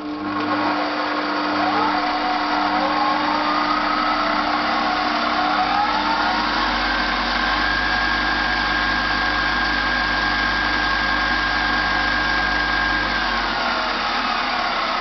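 Sieg C3 mini lathe running under power: its whine rises in pitch as the speed is turned up, holds steady at high speed, then drops as the speed is wound back down near the end.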